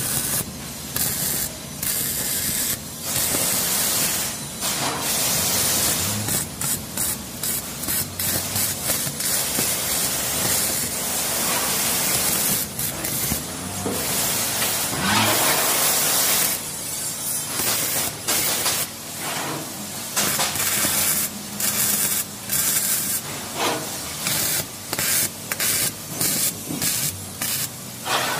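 MIG welding arc crackling and hissing in a run of short welds and tacks on sheet metal, stopping and restarting every second or so with brief pauses between.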